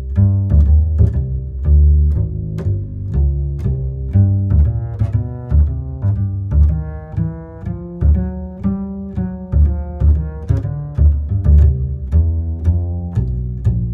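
Background music: a deep bass line with a steady pulse of evenly spaced notes.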